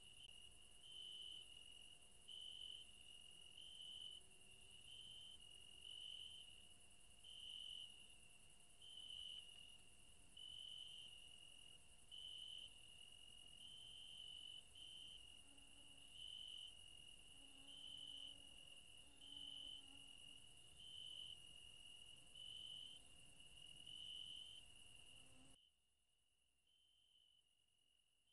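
Faint crickets chirping, a steady high trill with a brighter pulse a little more than once a second, which cuts out abruptly near the end.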